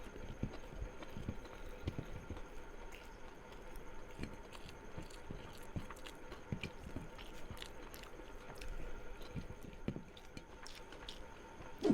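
A person chewing and biting food close to the microphone: irregular soft knocks and wet clicks of the mouth at work.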